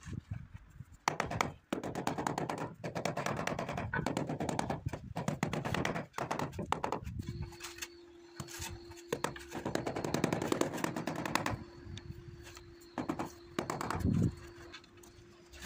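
A rubber mallet tapping freshly laid ceramic floor tiles to bed them into the adhesive, in rapid runs of sharp knocks with short pauses between.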